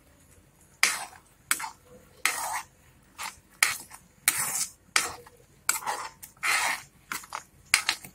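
A metal spoon scraping around a pan while stirring thick tamarind and jaggery chutney, in short, unevenly spaced strokes, roughly two a second.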